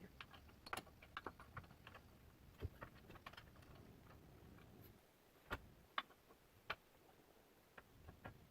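Faint, irregular clicks and light taps of hand tools and hardware being handled, over near silence, with a few sharper clicks in the second half.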